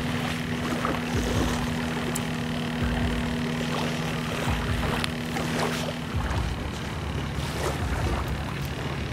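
A motor running steadily with a low hum; the hum's steady tone drops away about six seconds in.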